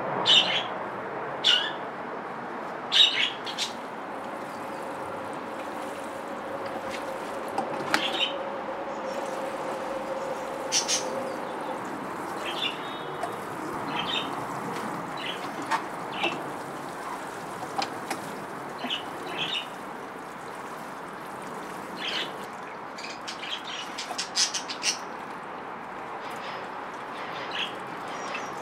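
Small garden birds chirping, with short calls scattered every second or so over a steady background hum.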